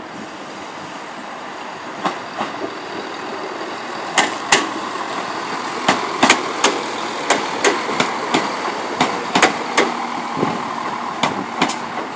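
A Class 170 Turbostar diesel multiple unit passing at low speed, its diesel engines running with a steady hum. Its wheels make sharp clicks over rail joints and pointwork, many of them in quick pairs as each bogie's axles cross, from about two seconds in.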